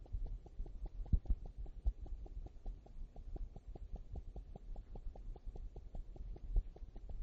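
Handling noise from fingers holding and pressing a smartphone close to the microphone: low rumble and a few soft thumps, the loudest about a second in and near the end. A rapid, even ticking of about five to six ticks a second runs underneath.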